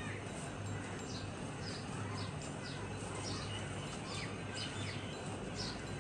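Small birds chirping, many short high calls in quick succession, over a steady low hum.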